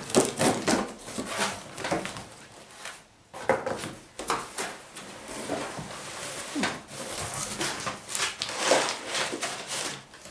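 A cardboard parcel being opened and unpacked: packaging rustling and crackling, with scattered clicks and knocks as things are handled.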